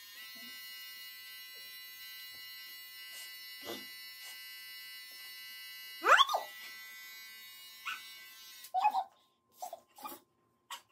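Electric hair clipper running with a steady buzz as it trims the hairline, stopping about three-quarters of the way through. About six seconds in, a short rising yelp from the man being trimmed.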